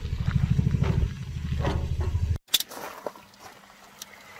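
Wind buffeting the microphone, a heavy low fluttering rumble that cuts off suddenly about halfway through. After that it is much quieter, with a few light clicks and knocks.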